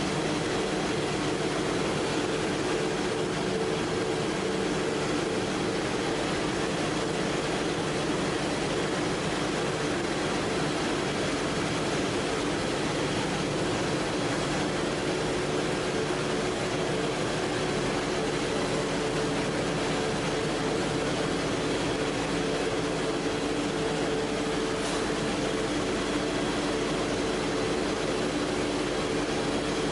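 PP/PET strapping extrusion line running: a steady machine hum and rushing noise, with a few constant low tones that do not change.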